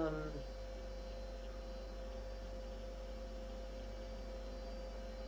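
Steady electrical mains hum: a low drone with a faint high tone held over it.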